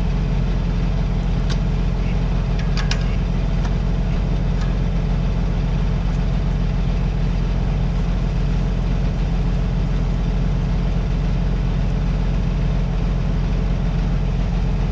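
Heavy engine running at a steady speed, a low even drone, with a few faint clicks about two to three seconds in.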